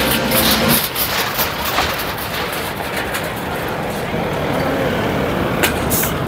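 Busy roadside street noise: vehicle engine sound and traffic with background voices, plus a couple of short clicks near the end.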